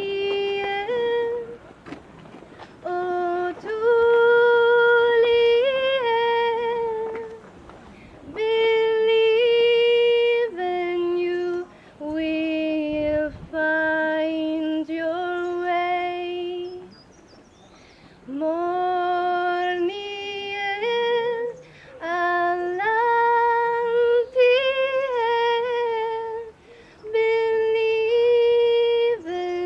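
A woman's solo voice singing a slow melody in long held notes, phrase after phrase, with short breaths between them.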